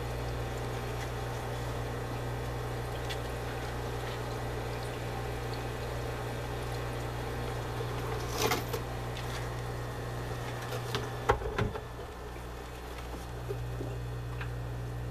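Steady hum of aquarium equipment with water bubbling. Hands working in the tank make a short burst of splashing and knocking about eight seconds in, and several louder knocks around eleven seconds.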